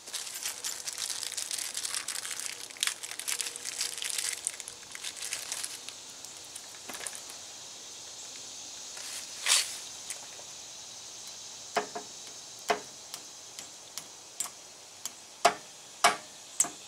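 Small plastic parts bag crinkling and rustling as it is handled for about the first six seconds, then scattered light metallic clicks and taps as a U-joint snap ring is worked into the bearing cap groove with pliers.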